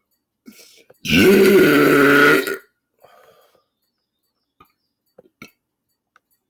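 A man's single long, loud belch about a second in, lasting about a second and a half. Its pitch rises at the start, then holds steady.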